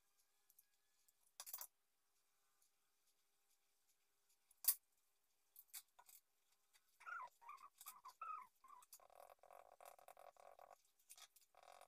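Mostly near silence with a few short soft clicks. From about seven seconds in, a faint animal call starts: some brief warbling notes, then a fast pulsing trill that stops briefly and starts again near the end.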